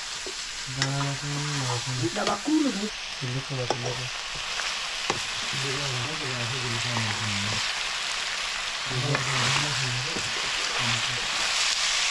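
Food frying and sizzling in a hot pan, a steady hiss that grows louder near the end, with a few sharp clicks.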